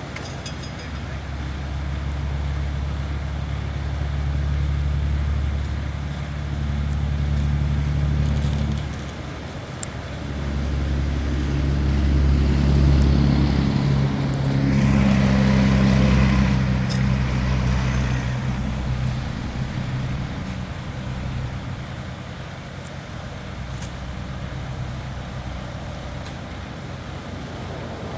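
Vehicle engines running, the sound swelling and fading twice and loudest about 13 to 17 seconds in.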